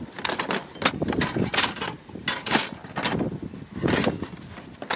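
Hacksaw blades and metal hand tools clattering and scraping against each other as they are shuffled by hand in a cardboard box: a string of irregular sharp clinks and rattles.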